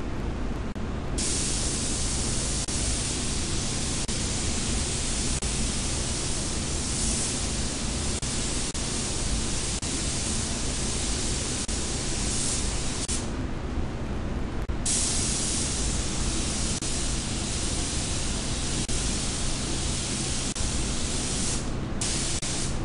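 Compressed-air paint spray gun hissing as it lays a silver coat on a car bumper, triggered in long passes: it starts about a second in, stops for about a second and a half midway, and pauses briefly near the end. A steady low rumble of the spray booth's air flow runs underneath.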